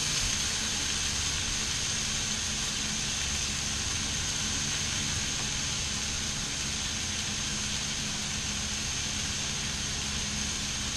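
Food sizzling steadily on a hot flat-top griddle, with a low steady hum underneath.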